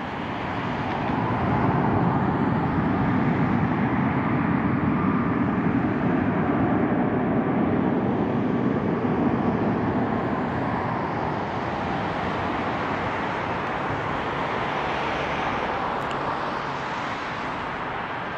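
Boeing 737 MAX 8's CFM LEAP-1B turbofan engines running as the jet rolls along the runway: a steady jet rumble with a faint fan whine, swelling about a second in.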